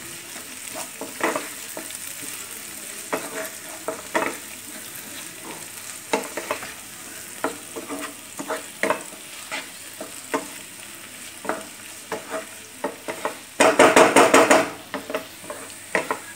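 Sliced onions and capsicum sizzling in oil in a non-stick kadhai while a wooden spatula stirs them, knocking and scraping against the pan in irregular strokes. About fourteen seconds in comes a quick run of fast stirring strokes, the loudest part.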